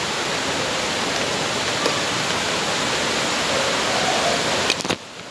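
Ravana Falls waterfall's steady rush of falling water, dropping off abruptly near the end after a couple of clicks.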